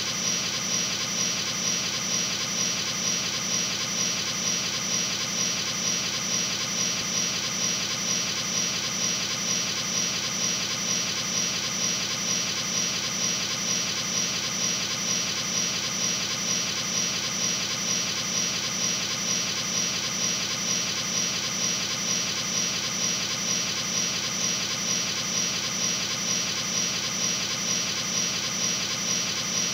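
A steady droning hum with a high, steady whine over it and a regular, even pulse, unchanging throughout.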